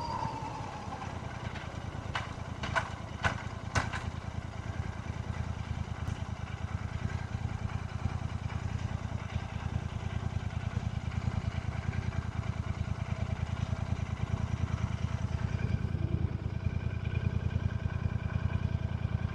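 Royal Enfield Shotgun 650's 648 cc parallel-twin engine running with a steady low beat, with four sharp clicks about two to four seconds in.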